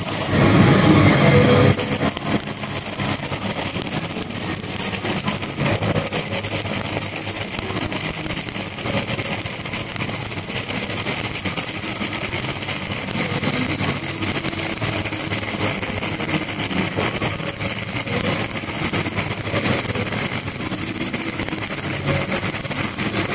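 Stick-welding arc of an 8010G cellulose pipeline rod burning steadily, a continuous crackling hiss that is a little louder for the first couple of seconds.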